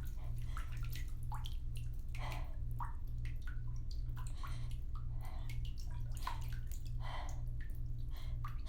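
Bathtub filling from the tap: water running steadily into the tub, with scattered splashes and drips over a low hum that pulses about twice a second.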